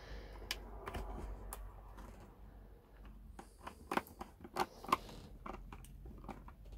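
Small screwdriver clicking and scraping in the screw terminals of a solar charge controller as cable ends are tightened in: irregular light ticks, with a few sharper clicks about four to five seconds in.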